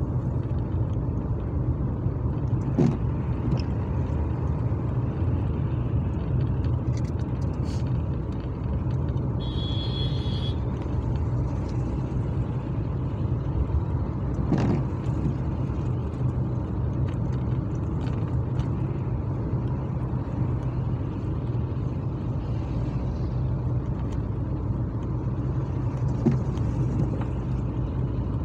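Inside a moving car's cabin: steady engine and tyre drone on a wet road, with a few short knocks from bumps. A brief high electronic beep sounds about ten seconds in.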